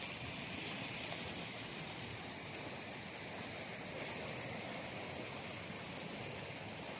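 Steady rushing of flowing stream water, an even noise with no breaks.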